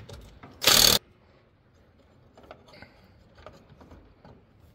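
Cordless impact wrench run in one short burst of just under half a second, loosening a bolt on a lawn tractor's steering gear during removal. After it come faint clicks and clinks of the bolt and small metal parts being handled.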